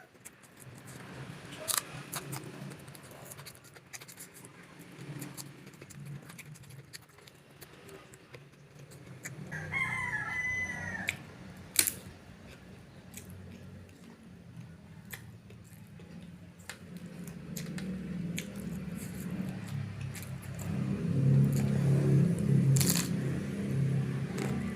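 Eating sounds of crunching and chewing raw vegetables and peyek, with sharp crunchy clicks scattered throughout and one loud click a little before halfway. A rooster crows once in the background about ten seconds in, and a low hum grows louder over the second half.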